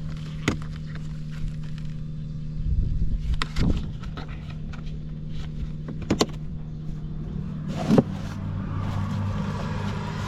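Honda Cabina 50 scooter's small two-stroke engine running at a steady pitch, with several sharp clicks and knocks over it; about eight seconds in a deeper hum joins the engine note.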